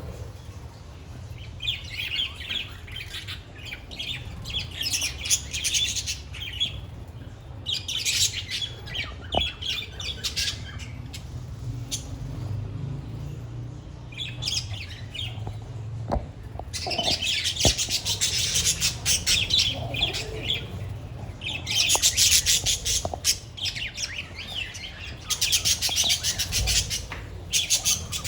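A flock of budgerigars chattering and chirping together, in bouts of dense, rapid calls a few seconds long with quieter gaps between them.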